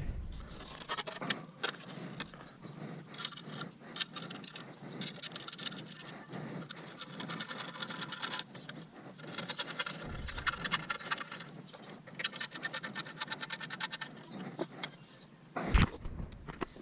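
Hand tool turning the screws that fasten a hydrofoil mast to its fuselage: metal scraping and clicking in several spells of rapid ticking, with a sharp knock near the end.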